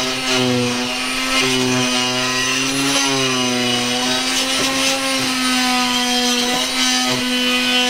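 An electric power tool motor running steadily with a constant whine, its pitch rising slightly and settling again about three seconds in.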